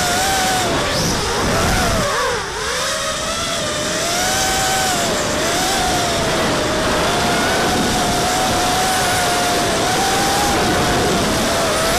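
FPV racing quadcopter's electric motors and propellers whining, heard from the drone's own camera, the pitch wavering up and down with the throttle. About two and a half seconds in, the pitch and level drop sharply as the throttle is cut, then climb back.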